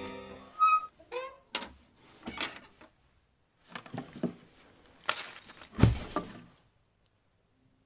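Scattered handling noises: a short squeak and a wavering creak about a second in, then a string of thumps and rustles. The loudest is a heavy thump near the end.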